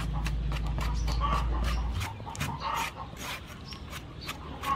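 A knife scrapes and slices the soft flesh of a palm fruit, with irregular sharp clicks and scrapes as pieces drop into a bowl of water. Short animal calls sound every second or so in the background, and a low rumble stops about two seconds in.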